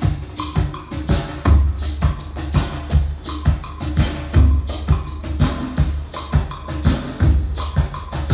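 Music with sharp percussion hits and heavy bass beats, played through Dali Opticon 2 stand-mount loudspeakers.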